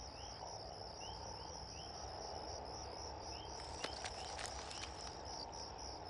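Quiet insect chorus: a steady high-pitched trill, with scattered short rising chirps over a soft low hiss.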